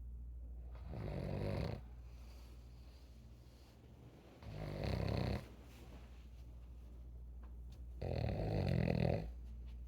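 An elderly person snoring in sleep: three snores, each about a second long and about three and a half seconds apart.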